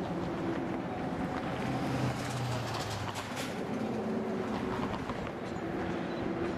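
EMD GP38 diesel locomotive, a 16-cylinder two-stroke, running steadily as it pulls a string of covered hopper cars across a steel swing bridge. Wheel clicks and clatter from the cars come through, briefly busier a few seconds in.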